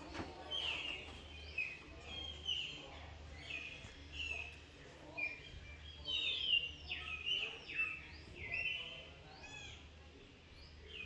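Birds chirping: many short, clear calls, several a second, many sliding up or down in pitch.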